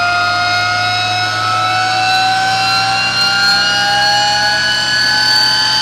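SCR1 electric race car's drive motor whining loudly under continuous load on an eddy current chassis dyno, its pitch rising slowly and steadily as the wheels drive the rollers. It sounds ear piercing, over a steady low hum.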